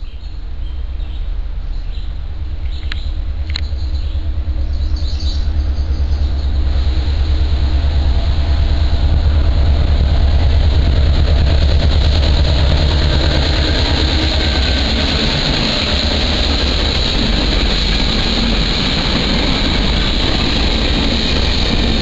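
Diesel locomotive, an EMD GP38-2W with its 16-cylinder two-stroke engine, running as the train goes by: a loud, deep rumble that swells over the first ten seconds and eases off later. A few sharp clicks come about three seconds in, and a rising hiss grows stronger in the second half.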